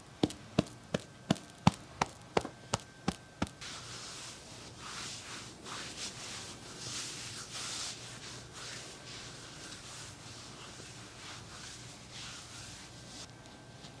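A run of sharp taps, about three a second, that stops about three and a half seconds in, followed by soft rustling and swishing.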